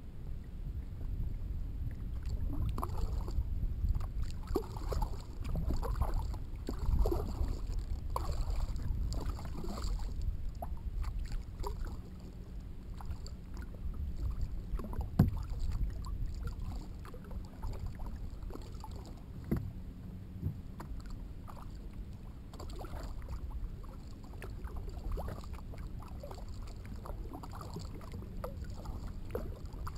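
Kayak paddle strokes splashing and dripping in calm water, with water lapping at the hull, roughly one stroke a second and louder in the first ten seconds. A single sharp knock about halfway through.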